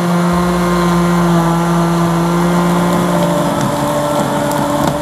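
Countertop blender motor running steadily at full speed, loud, blending chopped papaya and binahong leaves in water.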